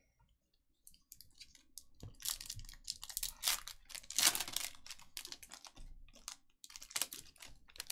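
A foil trading-card pack being handled and torn open: a run of crinkles and sharp rips of the wrapper, loudest about four seconds in.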